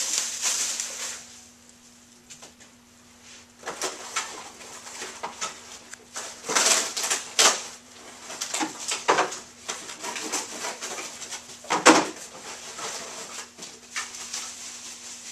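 Plastic wrapping rustling and crinkling as it is pulled off an office chair seat, then irregular rustles and handling noises, with one sharp clack about twelve seconds in. A faint steady hum runs underneath.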